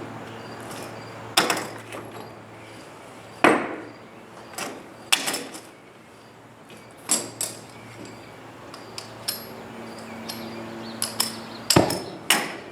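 Knocks and clanks from metal repair work, about half a dozen loud strikes spaced irregularly a second or a few seconds apart, each with a short ring, between smaller clicks. A faint steady low hum sits underneath.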